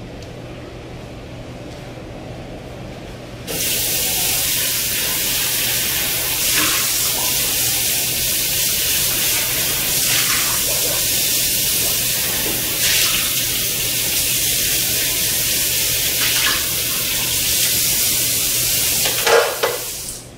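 Kitchen faucet turned on about three seconds in, running steadily into a stainless-steel sink, with a few short knocks and clatters at the sink, then shut off just before the end.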